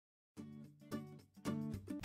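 Quiet intro music: three plucked, guitar-like notes after a moment of silence, the last one the loudest.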